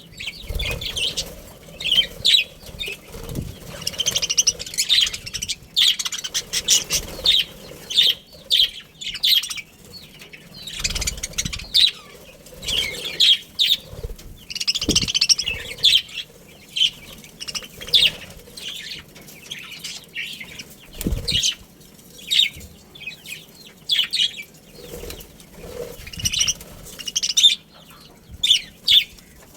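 Several budgerigars chirping in quick, irregular bursts of short, high chirps, with wings flapping and a few low thumps in between.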